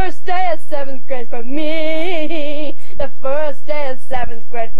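A girl singing a made-up tune without accompaniment: a few short notes, a long held wavering note in the middle, then more short notes. Two brief low bumps come near the end.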